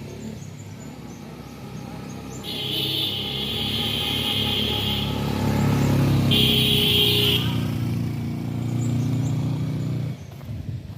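Motorcycle engine running, getting louder through the middle and dropping away near the end. Two high hissing sounds come in about two and a half and six seconds in, each lasting one to two seconds.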